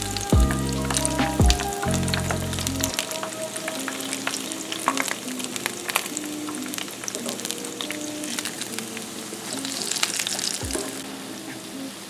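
Festival dumplings deep-frying in a pan of oil: a steady crackling sizzle. Background music with deep bass notes plays underneath, loudest for the first few seconds, then fainter.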